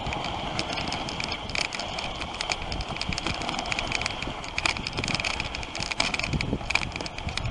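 Dog sled gliding along a packed snow trail: a steady hiss of the runners on the snow, with constant light clicking and rattling.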